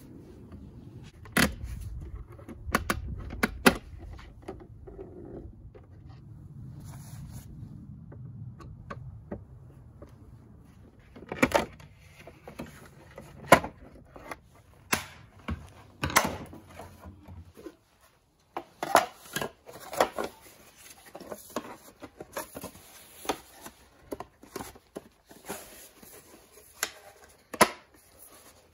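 Sharp clicks and knocks of plastic Ford F-150 mirror caps being handled and pried off their clips. The clicks are scattered at first and come thick and fast in the last third. A low steady rumble lies under the first two-thirds and stops suddenly.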